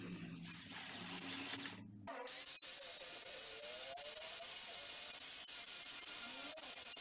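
A cordless drill runs for the first two seconds. Then an angle grinder with a hook-and-loop sanding disc starts and runs steadily with a strong hiss as a short wooden dowel is sanded against it.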